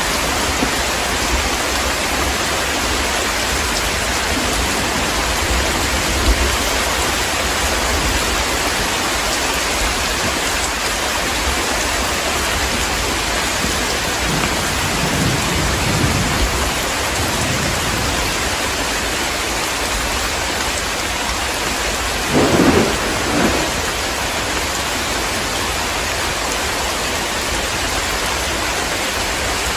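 Heavy rain falling steadily, with thunder rolling in the distance midway through and a louder rumble of thunder about two-thirds of the way in.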